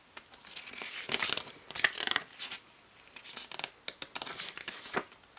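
Pages of a glossy CD booklet being turned and handled: a run of paper rustles and flicks, busiest from about one to two and a half seconds in.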